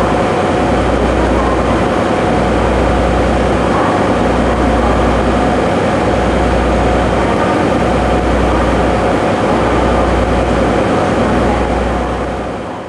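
The DMF31Z-G diesel generator engine of a Kani 24 generator car runs steadily with the train standing. It makes a loud, continuous drone with a low throb that dips briefly about every two seconds, and fades away near the end.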